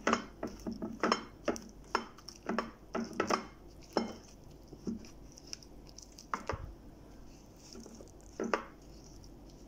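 Stone pestle (ulekan) pressing and knocking against a ceramic plate as it smashes fried eggplant into sambal. Irregular clacks come several a second for about four seconds, then thin out to a few single knocks.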